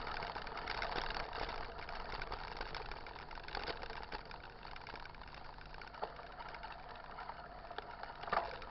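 Mountain bike rolling along a wet dirt road: a steady hiss of tyres and riding noise, with a few light clicks.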